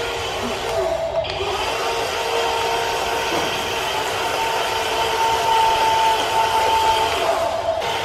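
Steady mechanical whirring with a held whine over it, broken by short dips about a second in and near the end.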